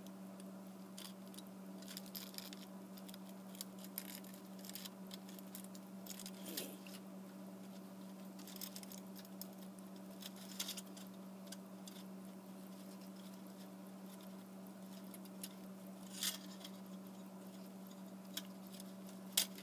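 A few faint scattered clicks and rustles from gloved hands handling a small super glue tube and a cellulose-wrapped bone, over a steady low hum.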